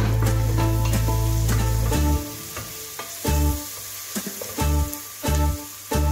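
Chopped carrots, onion and mushrooms sizzling in oil in a pot as they are stirred with a wooden spoon. Background music plays over it: loud for the first two seconds, then only in short returns, with the sizzling in between.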